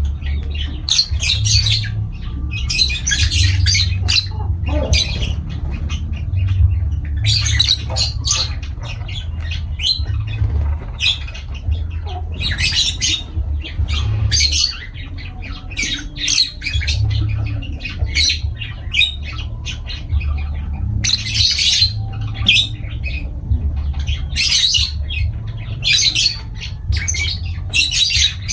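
Lovebirds calling, a stream of short, shrill squawks and chirps coming in quick clusters. A steady low hum runs underneath.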